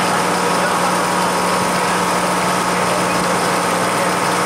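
Motorboat engine running steadily, an even drone that does not change.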